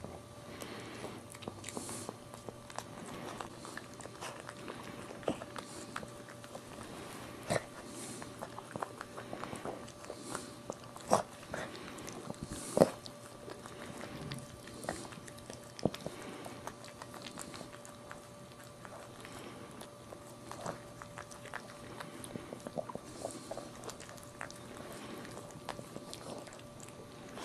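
Maltese mother dog licking and mouthing her newborn puppy to clean it: irregular wet smacking and clicking from her mouth, loudest twice near the middle.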